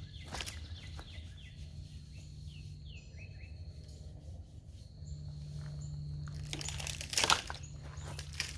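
Small birds chirping in short falling notes over a steady low hum, with a loud crunching, scraping handling noise about seven seconds in.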